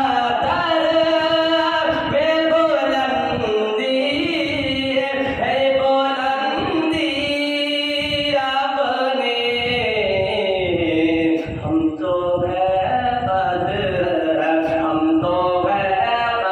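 A single voice singing a naat unaccompanied: a melodic devotional chant that runs without a break.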